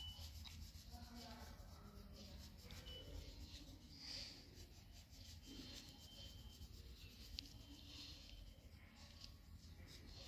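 Faint scratching of a purple crayon shading back and forth on worksheet paper, over a low steady hum, with one small click about seven seconds in.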